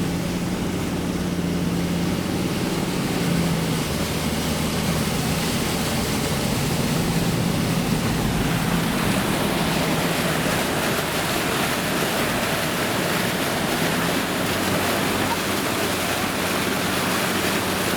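A four-wheel drive's engine running steadily while it drives through floodwater, with water rushing and splashing around the vehicle. The water noise swells about halfway through.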